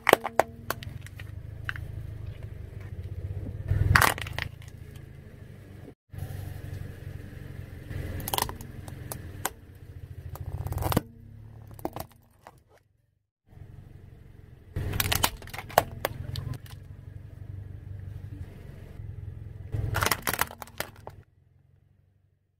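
Car tyre rolling slowly over hard plastic toys, the plastic cracking and snapping loudly several times over a low steady engine rumble. The sound breaks off into short silences between separate crushes.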